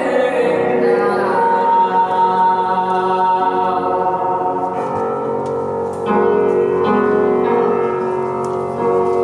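A woman singing long held notes in a live performance, over piano accompaniment, with a few sharper notes struck about five to seven seconds in.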